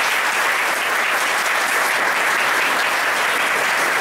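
An audience applauding: many hands clapping in a dense, steady patter that doesn't let up.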